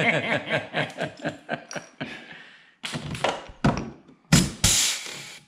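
Pneumatic rivet gun setting a blind rivet through the side skirt into the plastic underbody. In the second half come a few short hisses and clacks, then a sharp crack and a longer blast of exhaust air.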